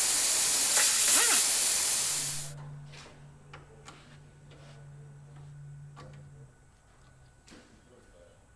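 Loud steady hiss of compressed air escaping, cut off suddenly about two and a half seconds in. Then a few faint clicks over a low hum.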